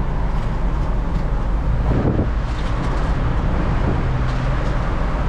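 Steady low rumble of a vehicle, engine running and road noise, with a brief noise about two seconds in.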